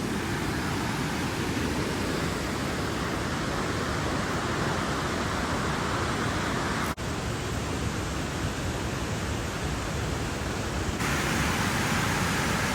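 Steady roar of a waterfall's falling water: an even rushing noise that briefly drops out about seven seconds in.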